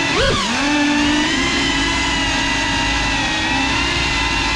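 Brushless motors and ducted propellers of a CineLog35 FPV cinewhoop whining steadily in flight, the pitch swooping up and back down once just after the start as the throttle is blipped.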